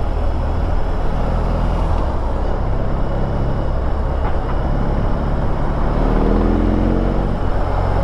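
BMW R18's 1802 cc boxer-twin engine running at low speed in traffic with a steady low note. About six seconds in, its revs rise for a second or two.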